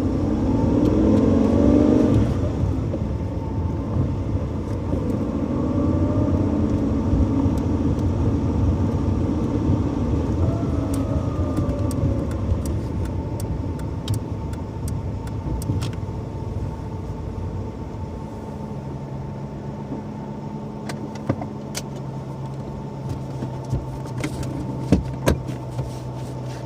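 Hyundai Eon's small three-cylinder engine driving on the road, rising in pitch as the car accelerates twice in the first twelve seconds, then running at a steady hum. A few sharp clicks come near the end.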